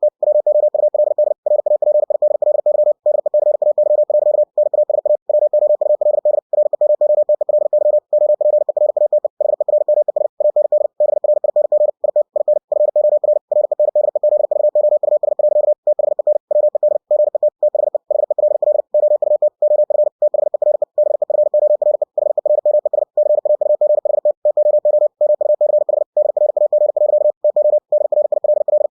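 Computer-generated Morse code sent at 60 words per minute: one tone of about 600 Hz keyed on and off very fast, with brief gaps between words.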